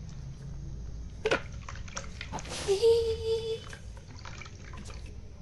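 A knock, then a brief splash of water about halfway through. A short, steady cry is held for under a second over the splash.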